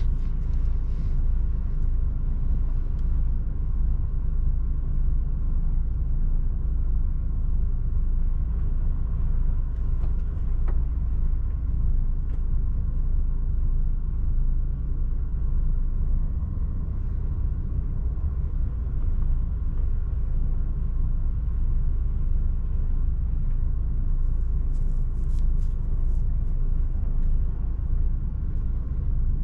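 Diesel engine and tyre noise of a DAF truck rumbling steadily inside the cab while driving.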